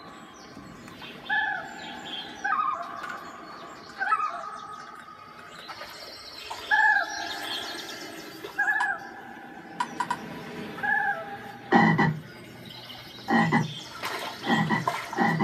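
Recorded animal calls played back as sound clips triggered from laptops and controllers: short pitched calls, each a brief arching tone, repeating every second or two over a steady background, with louder, rougher calls coming in from about twelve seconds in.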